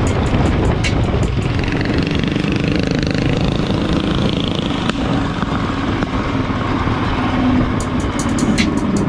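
Go-kart's 390cc Honda single-cylinder engine running steadily under way, recorded from onboard the kart.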